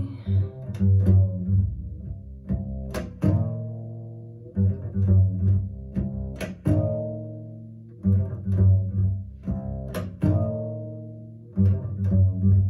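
Jazz recording played back through hi-fi loudspeakers: a plucked double bass line, each low note striking sharply and ringing down, with light crisp ticks above it, after the vocal has stopped.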